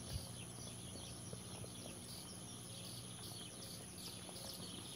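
Faint outdoor ambience by the water, with many small high chirps repeating throughout and a soft click just after the start.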